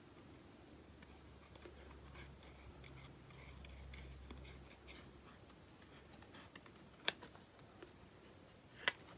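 Small scissors cutting a paper image backed with Bristol card: faint snipping and paper rustle, with two sharper clicks near the end.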